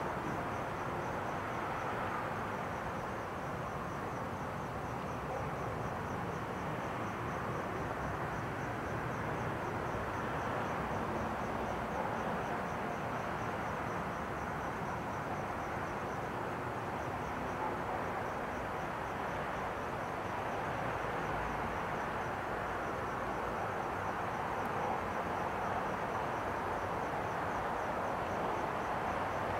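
Crickets chirping in a fast, even pulse, over a louder steady rushing background noise.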